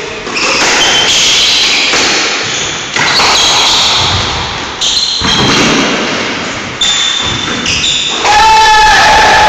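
Squash rally: sharp hits of racket and rubber ball on the walls every second or two, each ringing on in the echo of the enclosed court, with short shoe squeaks on the wooden floor.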